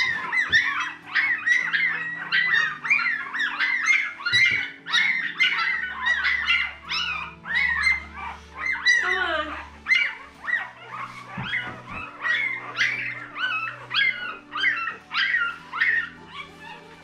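Nine-day-old miniature Australian cattle dog puppies crying in short high squeals, about two a second, that rise and fall in pitch.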